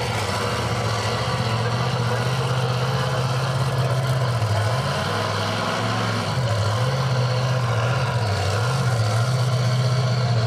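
Monster truck engine running, its revs sagging and picking back up three times.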